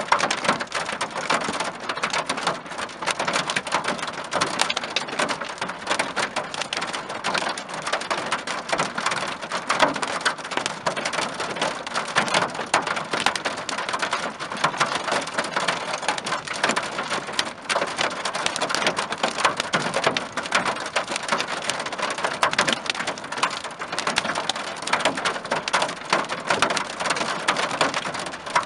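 Hail and heavy rain pelting a car's windshield and roof, heard from inside the cabin as a dense, unbroken clatter of impacts.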